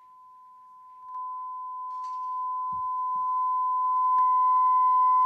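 A steady pure tone played through a TV speaker to set a drinking glass vibrating, getting louder about a second in and rising further until it holds loud and even.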